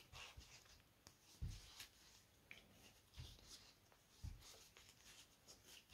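Faint scraping and rustling of thick 5 mm cotton cord drawn over a large plastic crochet hook as slip stitches are worked, with about three soft low thumps.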